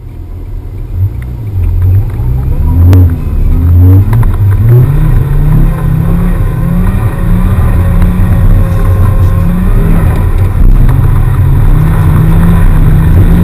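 Turbocharged 2.2-litre 20-valve inline-five of an Audi UrS6 quattro, heard from inside the cabin, revving under acceleration. Its pitch climbs over the first few seconds, then rises and falls with the throttle.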